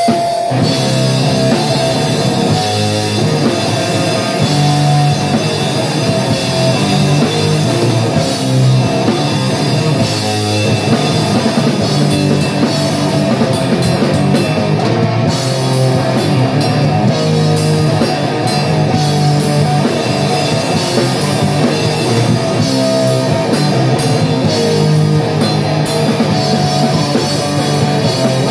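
Powerviolence played live by a two-piece band: heavily distorted electric guitar over a drum kit. The sound is loud and steady, with very little deep bass.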